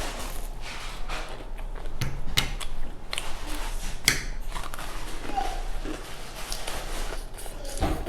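A person chewing spaghetti, with irregular wet mouth clicks and smacks.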